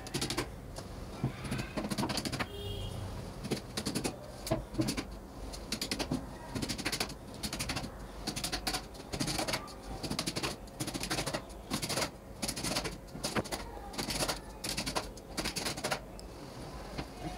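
Claw hammer knocking along a long steel piano hinge on a plywood bed-box lid as the hinge is fixed in place: a quick, irregular series of sharp knocks, a few a second, often in little clusters.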